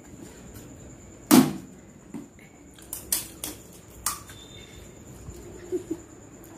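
A few sharp clicks and knocks, the loudest about a second and a half in, from hands cracking crisp puris and knocking steel plates and bowls while eating pani puri.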